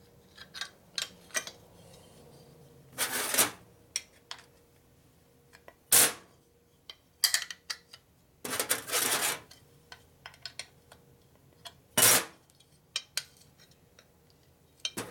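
Small metal engine parts and hand tools clinking and knocking on a workbench, with four short, louder scraping sounds spread through it.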